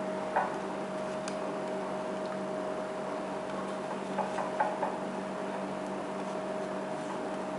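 A few light clicks and taps from a foil-wrapped match bundle being handled inside a drinking glass: one shortly after the start and a quick cluster of four about four to five seconds in. A steady hum runs underneath.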